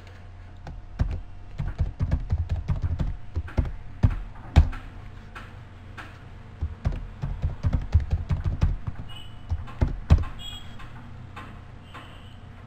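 Computer keyboard typing: quick, irregular keystrokes in two bursts, as a password is typed in and then typed again after being rejected. A low steady hum runs underneath.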